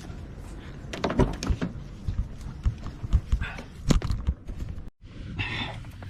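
Handling noise: a run of sharp knocks and clicks, loudest between about one and four seconds in, then a sudden gap of silence and softer rustling.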